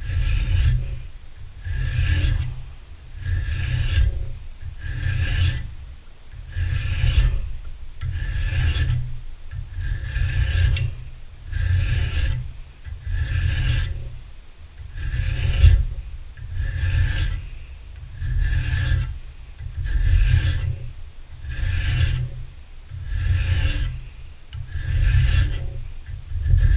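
Double-cut flat file worked by hand across a small metal part clamped in a bench vise, in steady strokes about once a second. Each stroke is a coarse rasp with a dull low thump under it, removing stock down to a scribed line.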